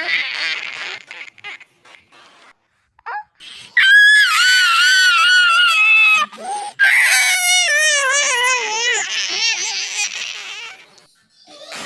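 High-pitched crying wails that waver up and down in pitch, in two long bouts: the first starts about three and a half seconds in, the second follows after a short break and fades out near the end.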